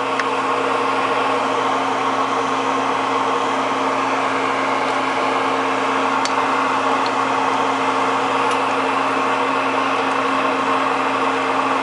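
Sufganiyot dough frying in a pot of hot oil, sizzling steadily, over a steady mechanical hum.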